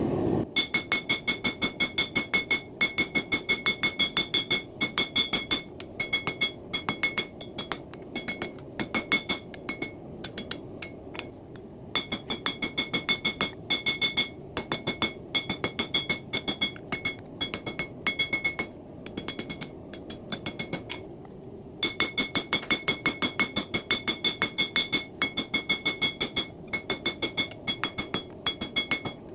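Hand hammer striking hot coil-spring steel on an anvil to draw out a knife handle: a fast, even rhythm of about four blows a second, each with a bright metallic ring, broken by two short pauses, the longer one about two-thirds of the way through.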